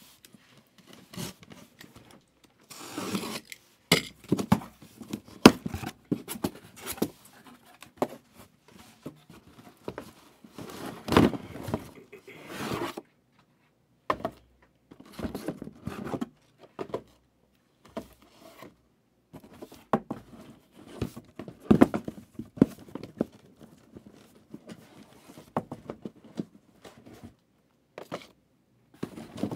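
Packs of 2023 Prizm football cards being torn open and the cards handled: irregular tearing, crinkling, small scrapes and clicks, with longer tearing sounds about three seconds in and again from about eleven to thirteen seconds.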